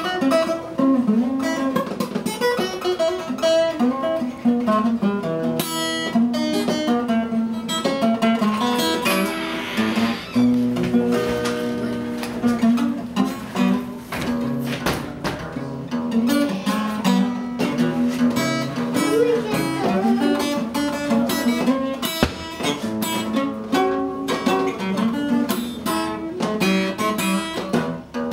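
Acoustic guitar played solo as an instrumental blues, a continuous run of plucked notes and chords.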